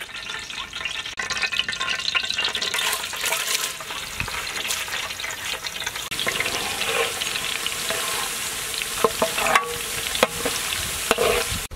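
Chopped garlic sizzling as it fries in hot oil in a large metal pot, stirred with a perforated metal ladle.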